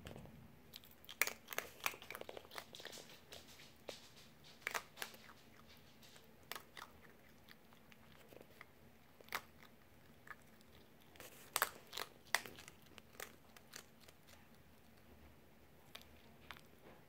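Fennec fox eating dry kibble and mealworms from a steel bowl: irregular sharp crunches of chewing, coming in small clusters with short pauses between.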